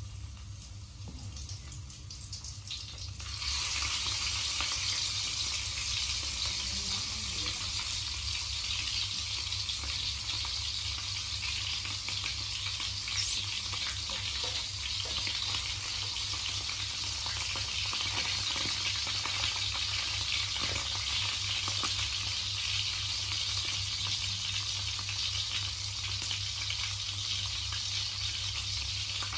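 Whole seasoned frogs frying in oil in a steel wok. There is a quiet sizzle at first, then about three seconds in a loud steady sizzle starts as more frogs go into the hot oil, with the spatula stirring and turning them. A steady low hum runs underneath.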